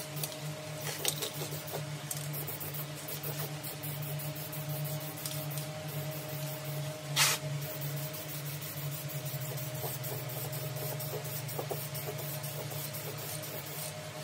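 A steady mechanical hum, with scattered light clicks and one short, loud hiss about seven seconds in.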